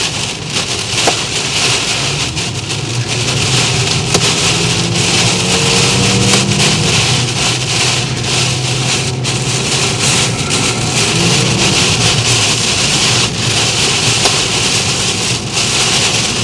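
Heavy wind-driven rain lashing a car's roof and windows, heard from inside the cabin, with the car's engine running underneath, its pitch rising and falling through the middle.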